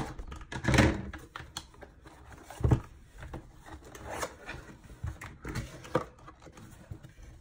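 A cardboard mailer box being handled and opened: irregular knocks, scrapes and rustles of cardboard and plastic wrap, with the heaviest thump about two and a half seconds in.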